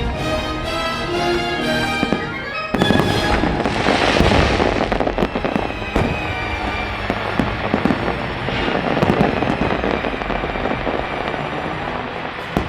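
Fireworks going off over a show's music soundtrack: held musical notes at first, then about three seconds in a sudden burst of booms and crackling, followed by repeated sharp pops and bangs with the music continuing underneath.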